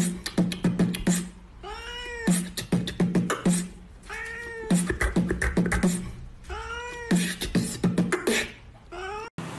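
A person beatboxing a rhythm of quick clicks and a low hum while a cat meows in time, one arching meow about every two to two and a half seconds.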